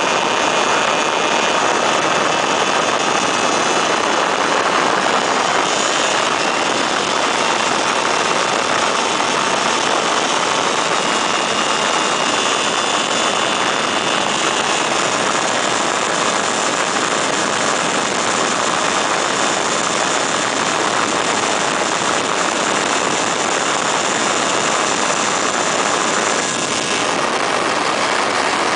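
Weedhopper ultralight's two-stroke engine and propeller running steadily in cruise flight, mixed with heavy wind rush over the open cockpit.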